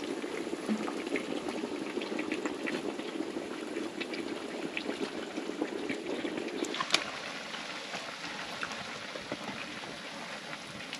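Chunks of pork bubbling and crackling as they fry in their own rendered lard in a large iron pan, with scattered spits and pops; the fat is rendering out as the meat browns into chicharrón. The bubbling grows quieter after about seven seconds.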